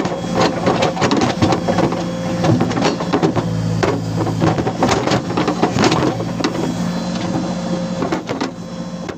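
Backhoe loader's diesel engine running steadily under load. Irregular knocks and clatter come from the backhoe bucket working loose soil.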